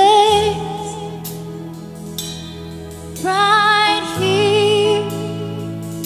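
Live gospel worship music: a woman sings two held phrases with vibrato, one at the start and one about three seconds in, over sustained band chords that shift to a new chord about four seconds in.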